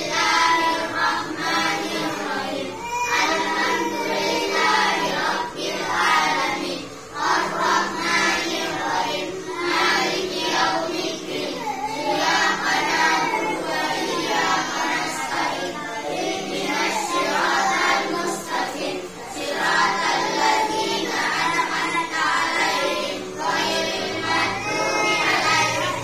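A group of children chanting a prayer together in unison, in a sung, melodic recitation.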